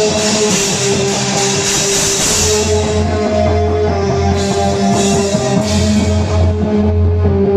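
Live rock band playing at full volume: electric guitar, bass and drum kit with sustained keyboard or guitar notes over a steady bass. It is a stage sound check of a song.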